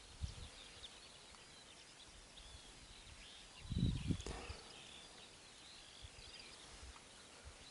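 Quiet outdoor ambience with faint, scattered high bird chirps, and a brief low bump and rustle about four seconds in.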